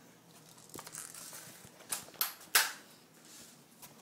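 A few sharp clicks or knocks, three close together about two seconds in, the last the loudest.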